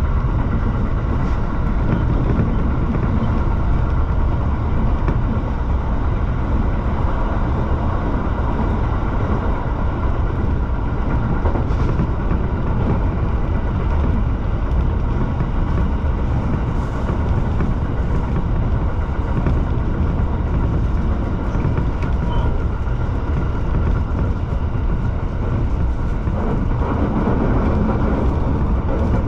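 Shinano Railway SR1 series electric train running along the line, heard from the driver's cab: a steady low rumble of wheels on the rails that holds even throughout.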